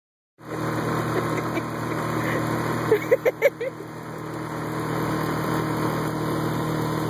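Small tiller-steered outboard motor running steadily, pushing the boat along under way. About three seconds in, a short burst of laughter, five quick bursts, is the loudest sound.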